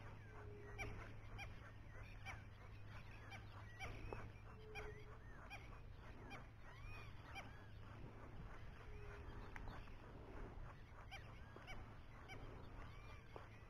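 Faint wild birds calling: many short chirps, with a short low note repeating about every four seconds, over a steady low hum.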